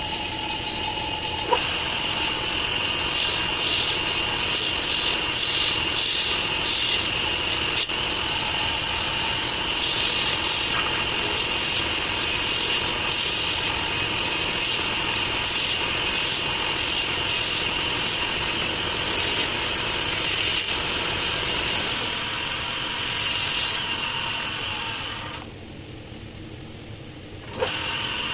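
Small wood lathe running with a steady motor whine while a turning tool cuts a tiny wooden saucer, giving irregular bursts of scraping. About three seconds before the end the whine cuts out for a couple of seconds, then comes back.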